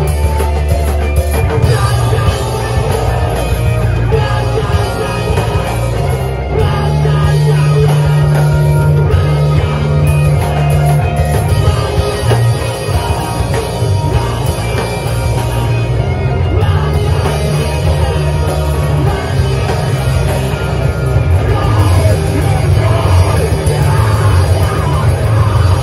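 Live band playing loud rock music, with guitars and drums and a strong low end, heard from among the audience of a small venue.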